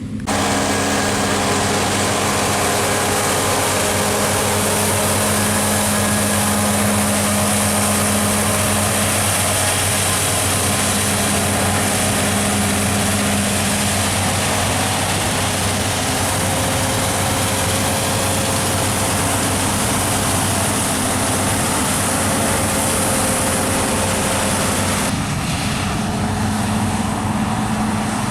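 Claas combine harvester running steadily at harvest: a diesel engine hum under a broad, even rush of machinery noise. About 25 s in, the high hiss drops away and a lower engine hum comes forward.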